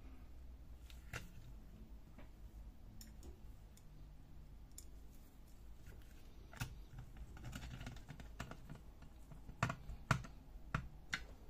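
Scattered light clicks and taps of hard plastic and metal parts as a screwdriver and hands work on the plastic housing of an HP Color LaserJet CP3525 fuser unit. The clicks come a few seconds apart at first and bunch up, louder, in the last couple of seconds.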